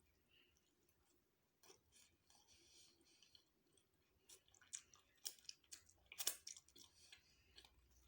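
Close-miked eating sounds: chewing with small, sharp clicks and crackles, quiet at first and growing louder and more frequent from about halfway.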